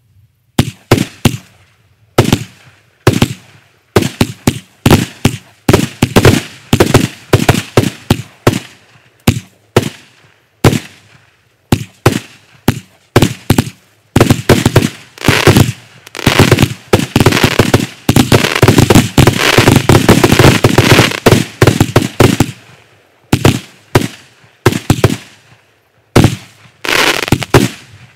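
Kimbolton Fireworks 'Hob Goblin' single-ignition firework cake firing: a rapid string of sharp bangs, several a second. Through the middle the bangs run together into an almost unbroken barrage, then space out again toward the end.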